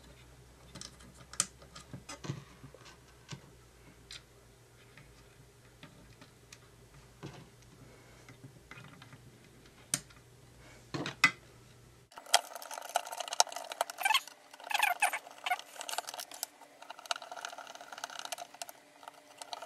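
Small plastic clicks and taps of a screwdriver driving screws back into a toy car's plastic camera housing. About twelve seconds in, the background hum drops out and denser, louder scraping and rattling of small plastic parts being handled takes over.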